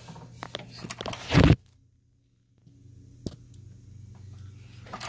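Small hand ratchet clicking as it turns a socket on a bolt, with a loud brief clatter about a second and a half in. After a moment of silence comes a steady low hum with a few scattered clicks.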